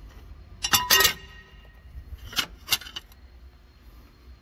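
A few sharp metal clanks with a brief ring: a cluster about a second in and two more over a second later. They come from the steel cover plate and its bolts being taken off the underside of the tractor's bell housing.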